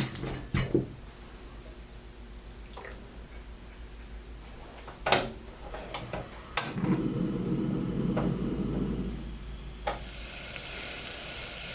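Caramel mixture starting to sizzle in a hot pan, a steady hiss setting in about ten seconds in. Before it come a few sharp kitchen clicks and knocks, and a low rumble lasting about three seconds.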